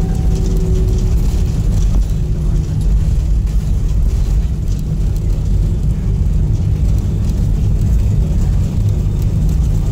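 Jet airliner's landing rollout heard from inside the cabin: a steady, loud low rumble of the wheels on the runway and the engines as the aircraft rolls along after touchdown.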